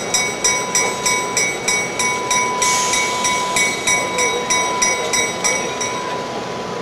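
Locomotive bell ringing steadily, about three strokes a second, and stopping about six seconds in.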